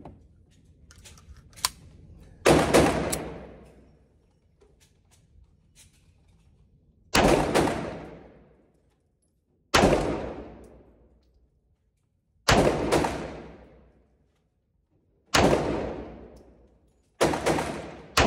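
Bulgarian Makarov pistol firing 9x18mm rounds at an indoor range: six single shots a few seconds apart, each with a short ringing tail from the room, and another shot right at the end.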